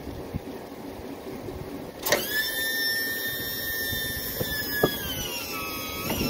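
Electric-over-hydraulic pump of a hi-rail pickup truck whining steadily as it lowers the hi-rail guide wheels onto the rail. It starts abruptly about two seconds in, and its pitch sags slightly near the end.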